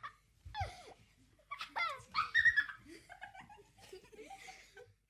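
High-pitched voices giggling and laughing in a few short bursts with gliding pitch, loudest a little past two seconds in and stopping just before the end.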